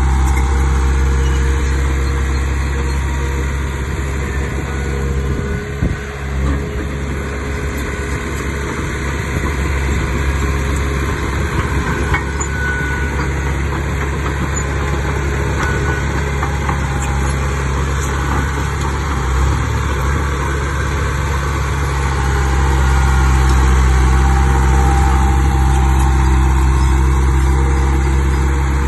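Heavy diesel engine of earthmoving machinery running steadily with a low drone. It dips briefly about six seconds in and grows louder in the last quarter.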